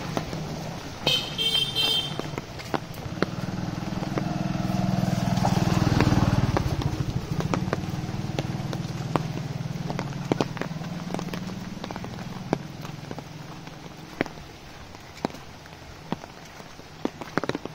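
A motor vehicle's engine hum swells to its loudest about six seconds in, then fades away. A short, high, pulsing beep sounds about a second in, and scattered sharp clicks run throughout.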